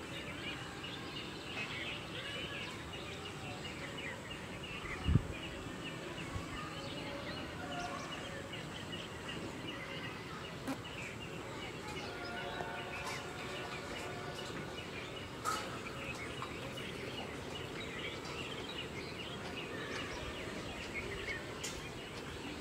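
Outdoor ambience: birds chirping over a steady background noise, with one sharp low thump about five seconds in.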